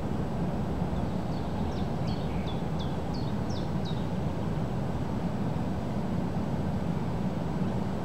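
Strong wind blowing across the microphone: a steady low noise with no let-up. Between about one and four seconds in, a small bird sings a quick run of about eight high chirps, each sliding downward.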